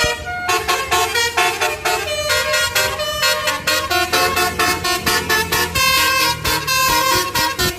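Basuri multi-tone 'telolet' air horn on a bus playing a quick melody of short, bright horn notes, several to the second. A bus engine runs low underneath.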